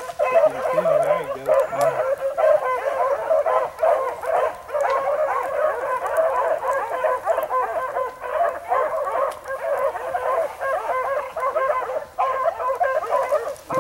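A pack of rabbit hounds baying and yelping together without a break, the sound of hounds running a rabbit's trail.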